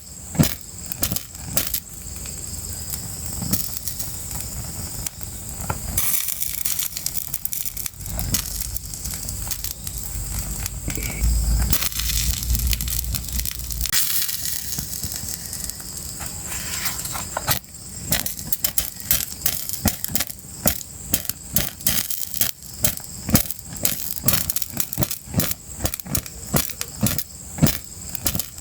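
Fire crackling with many sharp pops and snaps. From about six to fourteen seconds in, the pops give way to a steady hiss over a low rumble, after which the sharp crackling returns.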